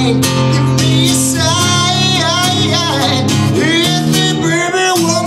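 A man singing into a microphone while strumming an acoustic guitar, a solo live performance. The voice slides and bends over held chords.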